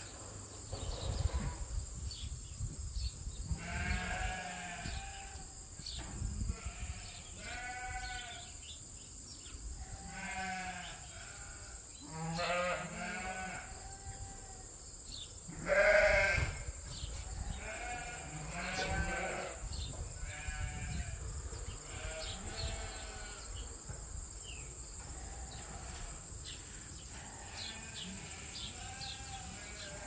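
Sheep bleating repeatedly, about a dozen separate wavering calls from different animals in the flock. The loudest comes about halfway through.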